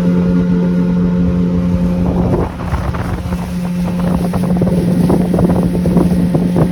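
Motorboat engine running steadily under way, a constant hum, with wind buffeting the microphone.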